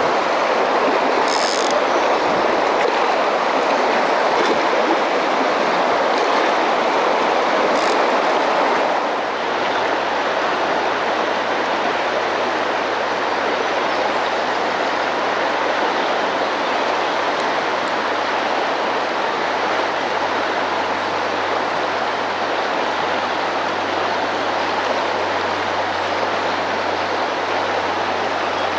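Steady rushing of a large river's current flowing around the wader's legs, with a couple of brief splashes in the first eight seconds. The level drops slightly about nine seconds in.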